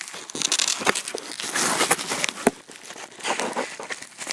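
Packaging crinkling and rustling with sharp crackles and clicks as a radio is pulled out of its box, busiest in the first half.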